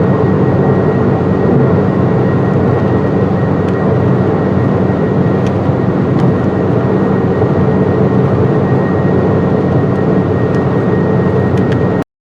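Loud, steady hiss of radio static with a thin, steady high whine above it, cutting off abruptly near the end.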